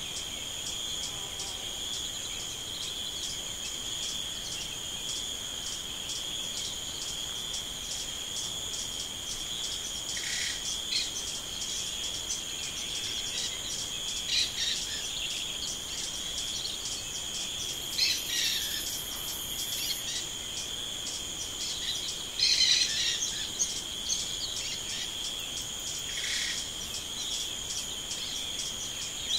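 A steady, high-pitched, fast-pulsing trill of insects, with short bird calls coming in about every four seconds through the second half, the loudest a little after the middle.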